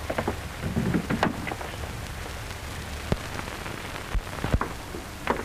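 Hiss and crackle of an old optical film soundtrack, with a few sharp clicks scattered through it, the clearest about three seconds in and twice more just after four seconds.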